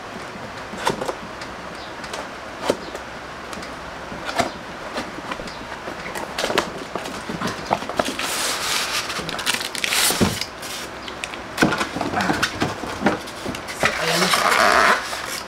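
A cardboard box being opened and unpacked: scattered knocks and taps as the flaps and box are handled, then longer scraping and rustling as the foam-packed grill slides out, with another burst of rustling near the end.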